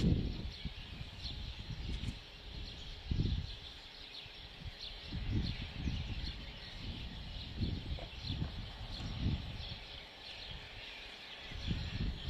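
Muffled low thuds and rumbles, several at uneven intervals, from a bulldozer demolishing a house, heard from far off. They sit under a steady chorus of high-pitched chirping.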